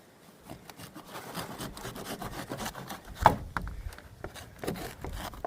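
Knife sawing and scraping through a ripe jackfruit's rind, with a sharp knock about three seconds in.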